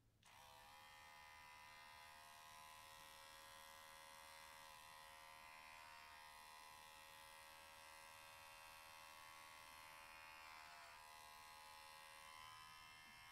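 Electric pet hair clipper switched on and running steadily with a high whine, its pitch sagging briefly a few times.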